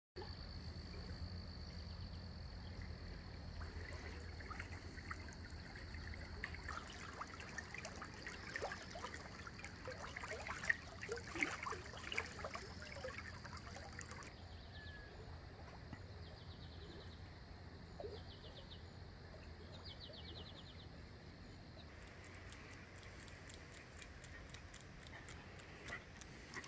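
Faint outdoor ambience: birds chirping over a steady high tone, then, after a cut about halfway, a small creek trickling, with short trills repeating every second or two.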